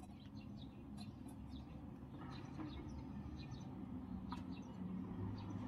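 Small birds chirping in the background: many short, high, downward-gliding chirps over a faint steady low hum.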